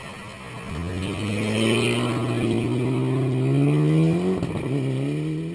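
Mitsubishi Lancer Evolution rally car accelerating hard out of a gravel corner and away, its engine note climbing steadily in pitch, dropping at a gear change about four and a half seconds in, then climbing again.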